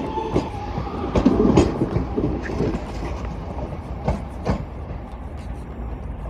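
Passenger train running through the station with a steady low rumble, its wheels clicking irregularly over the rail joints, loudest about a second or two in.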